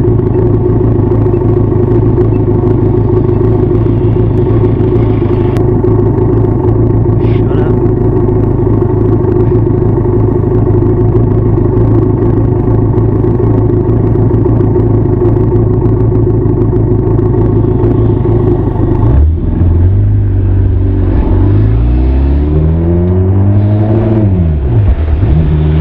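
Benelli TRK 502 parallel-twin engine and exhaust under way, held at steady revs for most of the stretch. About 19 seconds in the note drops away, then climbs and falls again as the revs change, and settles to a steady lower note near the end.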